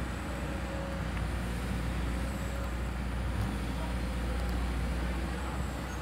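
Excavator's diesel engine running with a steady low rumble.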